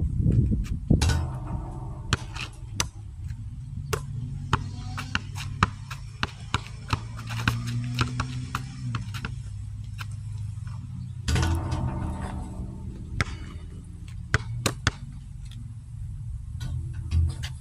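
Background music with a steady low bass line, over the repeated sharp bounces of a basketball being dribbled on an asphalt court.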